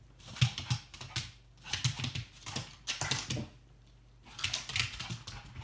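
A dog and a cat scuffling in play on a laminate floor: bursts of scrabbling claws, clicks and rustling fur in three spells.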